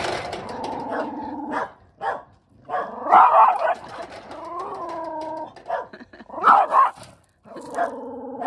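Two male Shiba dogs growling and barking at each other in a hostile standoff. A long low growl gives way to loud barks about three seconds in and again near seven seconds, with a drawn-out wavering bark between them, and a second long growl near the end.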